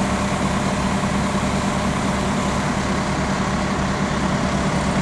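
Mobile crane's diesel engine running steadily at constant speed, a low even hum with a fast pulse.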